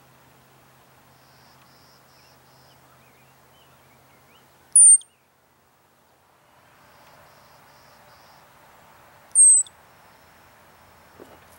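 Richardson's ground squirrel giving two sharp alarm chirps, each a brief high whistle sliding down in pitch, about four and a half seconds apart: it is scolding an intruder near its burrow. Faint insect trills in the background.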